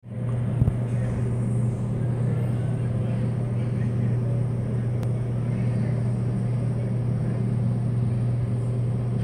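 Diesel freight locomotives of an approaching train, a steady low engine rumble with an even hum.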